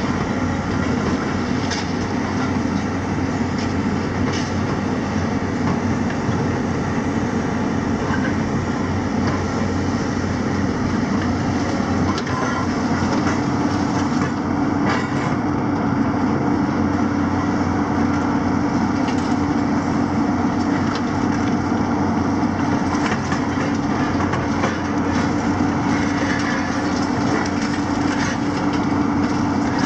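Diesel excavators running under load at a demolition site, their engines giving a steady drone, while a demolition grab crunches and breaks concrete and scrap, with scattered knocks and clatters of falling rubble.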